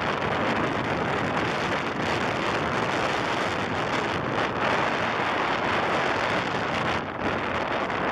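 Steady wind rushing over the microphone of a moving ATV, with engine and tyre noise on gravel underneath; it eases briefly about seven seconds in.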